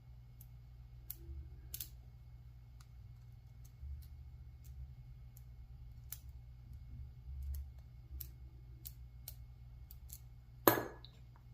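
Faint, scattered clicks of a lock pick setting pins in a brass padlock held under tension. Near the end comes one loud, sharp snap: the picked shackle springing open.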